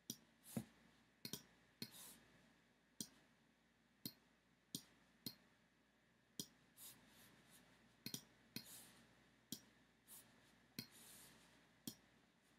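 Computer mouse button clicking: single sharp clicks at irregular intervals, about one or two a second, with a few softer, longer sounds between them.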